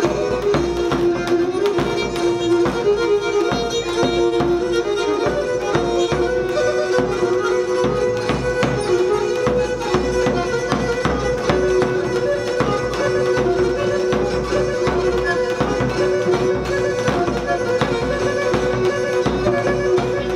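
Pontian Greek folk dance music: a bowed string instrument playing a melody over two steady held notes, with an even, regular beat.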